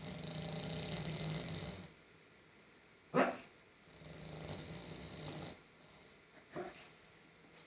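Sleeping pug snoring: two long, pitched snores. Between them, about three seconds in, comes one short, sharp bark in its sleep, the loudest sound here, and a smaller short yip follows near the end.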